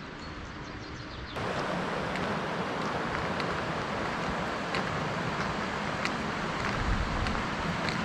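Steady rushing of a fast Alpine mountain river, with wind buffeting the microphone. It gets clearly louder about a second in and then holds steady, with a few faint ticks.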